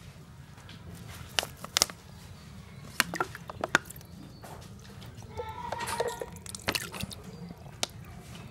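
Water sloshing, splashing and dripping in a bucket as a plastic bottle wound with braided fishing line is squeezed under water and lifted out, with scattered sharp clicks of the plastic. A chicken clucks in the background about six seconds in.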